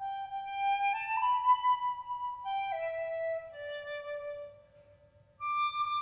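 Solo flute playing a slow melody of held notes over a faint steady drone; the phrase steps up, then winds down and fades about five seconds in, and a new phrase starts just after.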